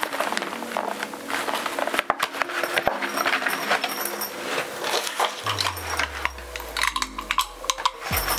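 Irregular rustling, clicks and light clinks of a fabric stroller storage bag and its cardboard packaging sleeve being handled, over quiet background music whose low bass notes come in about five seconds in.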